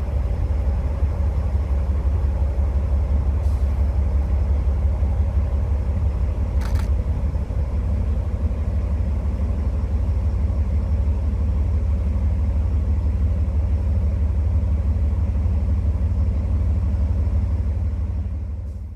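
Diesel engine of an ÖBB 2067 diesel-hydraulic shunting locomotive running with a steady deep rumble, fading out near the end.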